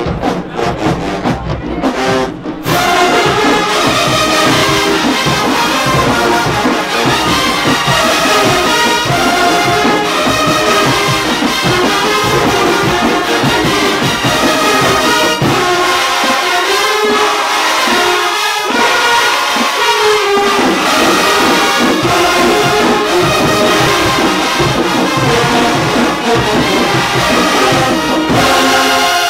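A marching band plays: drums alone for about two seconds, then the full brass section of trumpets, mellophones and sousaphones comes in loud over the drumline. The bass drops out for a few seconds about halfway, then returns.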